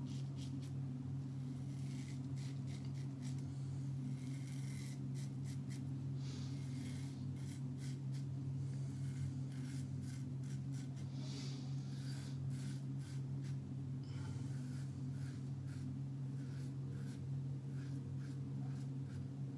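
Edwin Jagger double-edge safety razor with a King C. Gillette blade scraping through lathered beard stubble in many short strokes, over a steady low hum.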